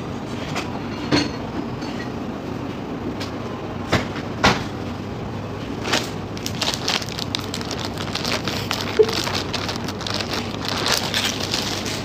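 Kitchen clatter: scattered knocks and clinks of utensils and cookware, growing busier and more continuous in the second half, over a steady background hiss.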